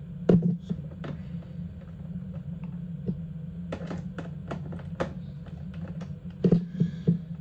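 Irregular clicks and light knocks from hands working on a GE dishwasher's door as screws and plastic parts are taken out, over a steady low hum. The loudest knocks come just after the start and in a quick cluster near the end.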